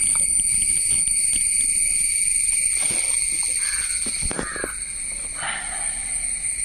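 A steady, high-pitched insect drone with a fine rapid ticking in it, joined by a few short knocks from pump parts and fittings being handled.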